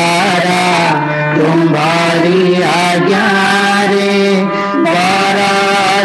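A devotional morning prayer chanted to a melody over a steady drone accompaniment, the melodic line sliding between held notes.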